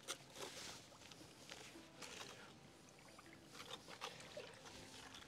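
Faint, scattered splashing of water as a hand net is worked through seaweed in a shallow rock pool.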